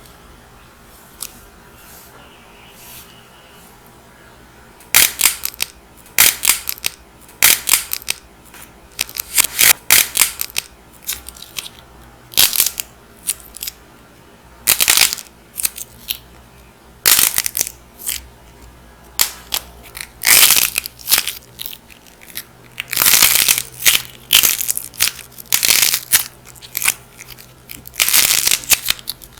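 Dried clay being cracked and crushed, giving a run of sharp crackling crunches at irregular intervals. It starts about five seconds in, after a quiet stretch with only a few faint ticks.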